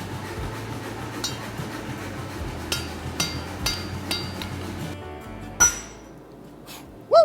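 Steel tools and workpieces clinking and striking during axe forging. A few light ringing clinks are followed by two loud metallic strikes about a second and a half apart, the last with a short ringing tone that bends in pitch. A steady low hum under the clinks stops about five seconds in.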